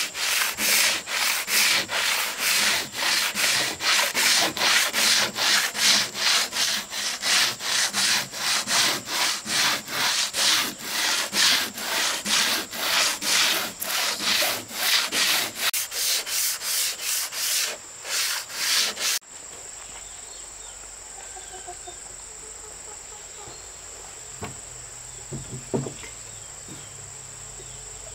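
Wood being sanded or rubbed down by hand: rhythmic back-and-forth strokes, about two a second, that stop abruptly about two-thirds of the way through. A steady high-pitched insect drone follows, with a few faint knocks near the end.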